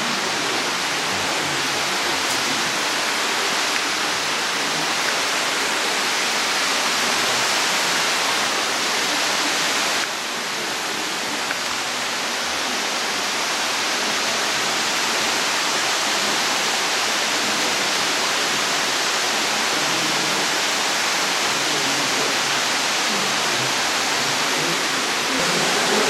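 Steady rushing of the underground stream running through the limestone cave, with a slight drop in level about ten seconds in.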